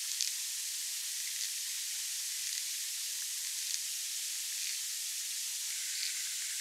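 Underwater hydrophone sound in a rock pool: a steady high hiss with faint, irregular scratching clicks, a repetitive scratching sound likely to be prawns feeding on minced pork bait.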